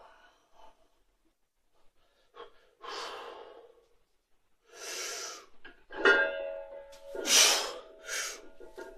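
A weightlifter's sharp, forceful breaths while bracing over the barbell, then a strained, held groan and hard exhales as he pulls a 182.5 kg deadlift up to lockout.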